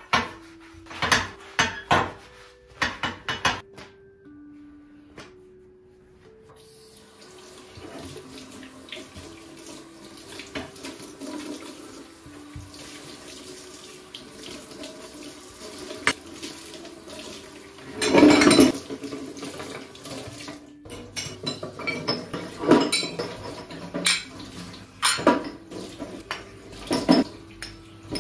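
Dishes and cutlery clinking, then a kitchen tap running into the sink for about fourteen seconds, with a loud clatter of dishes near its end. After the water stops, more dishes clink.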